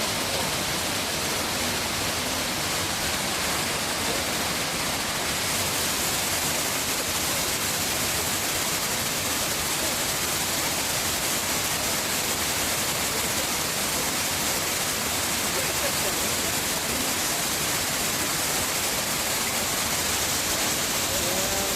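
Ouzoud waterfall's water falling and rushing in a steady, unbroken wash of noise.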